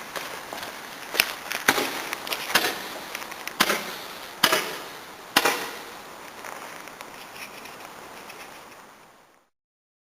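A ground firework burning with a steady hiss, broken by six sharp cracks over the first six seconds. The hiss then dies down, and the sound stops abruptly near the end.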